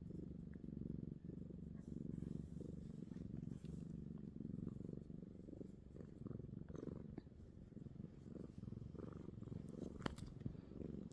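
Kitten purring steadily and fast with a low rumble, heard close up while being petted, with a few faint taps and rustles.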